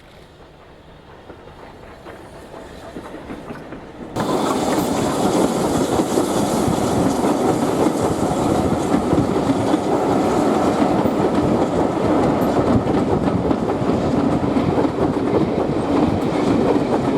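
A steam-hauled train passing close by, its wheels clattering on the rails. It grows slowly louder, then about four seconds in it turns suddenly loud and stays loud and steady.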